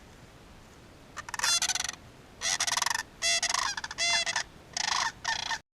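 A flamingo honking: about six loud, nasal, goose-like calls in quick succession, ending with an abrupt cut.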